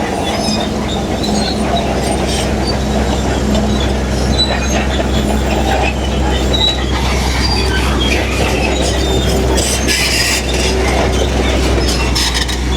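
Heavy crawler bulldozer working: its diesel engine drones steadily under load while the steel tracks clank and give off short high squeaks and squeals.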